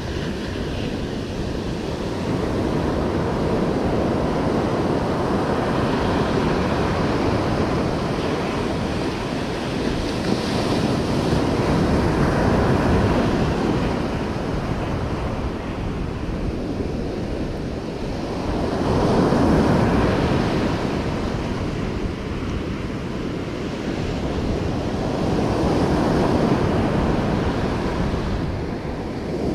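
Ocean surf breaking and washing up a beach, swelling louder as each set of waves comes in, roughly every six or seven seconds, with wind rumbling on the microphone.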